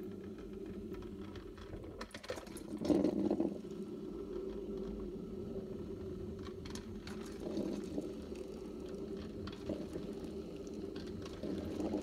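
Melitta 1011-08 Look Therm Timer drip coffee maker brewing: its heater is bubbling as hot water is pushed up to the filter, with scattered small crackles and a louder surge about three seconds in. It runs quietly.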